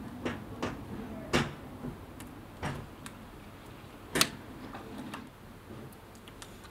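Hands slapping and clapping against each other while signing: irregular sharp slaps a second or so apart, the loudest about one and a half seconds in and again about four seconds in, over a faint low hum.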